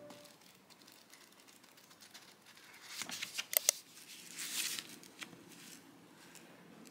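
Quiet handling sounds of a book being annotated: a few sharp clicks about three and a half seconds in, then a brief papery rustle.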